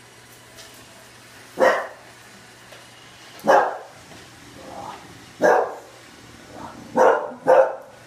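English bulldog barking at a Roomba robot vacuum: five loud single barks a second or two apart, the last two close together near the end, with a couple of quieter woofs between.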